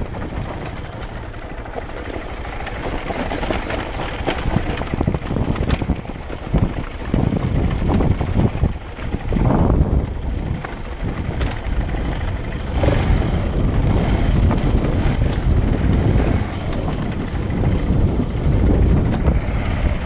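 Single-cylinder engine of a 2014 KTM 690 Enduro R motorcycle running on a rough downhill trail. Irregular knocks and rattles from the bike run through it the whole time.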